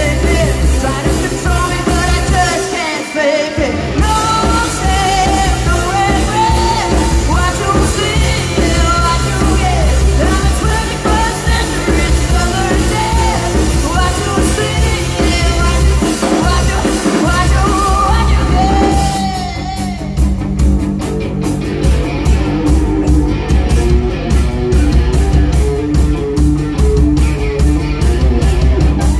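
Live rock band playing loud: electric guitar, bass guitar and drum kit with a vocalist singing. About two-thirds of the way through the singing stops and the band plays on instrumentally with a steady, regular drum beat.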